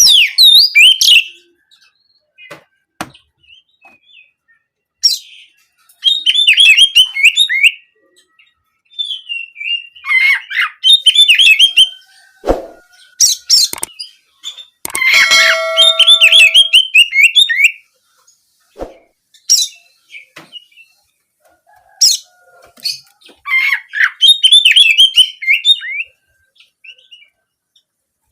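Oriental magpie-robin (kacer) singing loud bursts of rapid, warbling chirp phrases, in the canary-like 'nembak kenari' style, with pauses between bursts and a few sharp clicks in the gaps.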